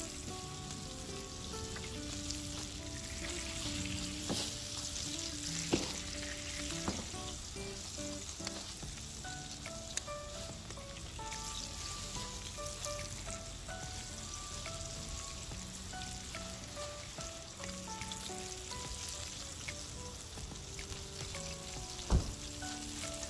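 Flour-coated mackerel fillets frying in shallow oil on a wide griddle pan over a hot wood fire, a steady sizzle and spatter. A few sharp knocks of metal tongs against the pan cut through it, the loudest near the end.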